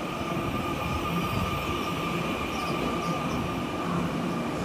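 TEMU2000 Puyuma Express electric multiple unit leaving a station and rolling past. Steady wheel-on-rail rolling noise, with a steady high hum over it.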